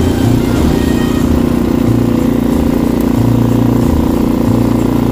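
An engine running steadily at an even speed, with a constant low drone and an uneven rumble beneath it.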